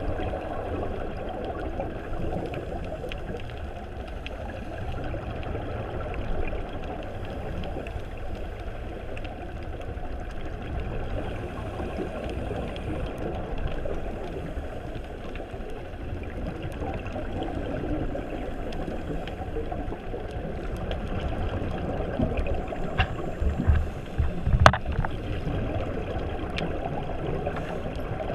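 Muffled, steady underwater rushing and gurgling heard through a camera's waterproof housing. Near the end come a few short knocks and low thumps.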